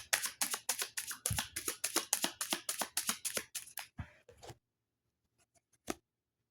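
Tarot deck being shuffled by hand: a rapid, even run of card slaps, about six a second, that stops about four and a half seconds in, followed by a few faint clicks.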